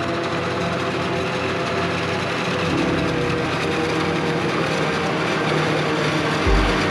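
Self-propelled forage harvester working in maize: a steady heavy engine drone under a dense whirring of the chopping and blowing machinery, with the engine note shifting a little under three seconds in and a brief low thump near the end.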